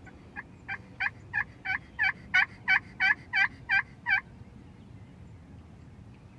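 A series of about a dozen turkey yelps, evenly spaced at about three a second, building in loudness and then breaking off about four seconds in.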